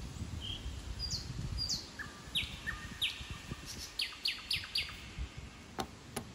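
A small songbird chirping: a run of short, downward-sliding chirps, at first about half a second apart and then four in quick succession about four seconds in, over a low rumble. Two sharp clicks near the end.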